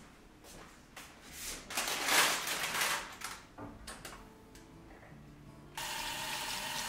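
Irregular rustling and handling sounds, loudest about two seconds in; then, near the end, a kitchen tap comes on suddenly and runs water steadily over radishes in a colander in the sink.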